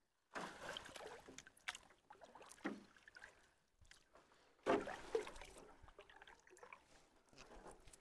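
Faint splashing and sloshing of water, with short louder splashes about a third of the way in and just past halfway.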